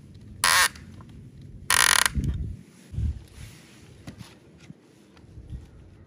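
Two short, loud, harsh rasping noises about a second apart, followed by a few dull knocks of wood being handled.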